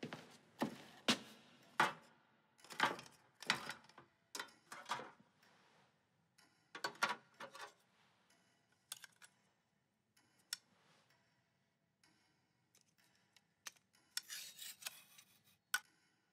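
Close-up barbering sounds: a run of short, crisp scraping strokes about two a second, then sparse small clicks as a straight razor is handled and opened, with a brief high scraping rustle near the end.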